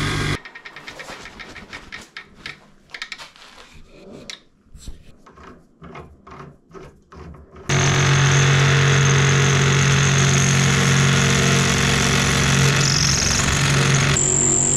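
Wood lathe running, cut off a fraction of a second in, followed by several seconds of quiet, irregular clicks and knocks. About halfway through, the lathe motor starts running again steadily while a drill bit held in a tailstock drill chuck bores into the end of the spinning workpiece.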